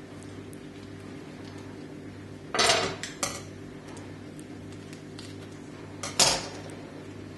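Metal utensils clattering on a hard kitchen countertop, twice: a short clatter about two and a half seconds in, and a second, louder one about six seconds in as a pair of scissors is laid down on the counter.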